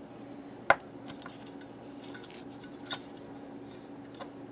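Small hard objects handled on a desk: a sharp click just under a second in and a lighter one near three seconds, with faint rustling between, over a steady low hum.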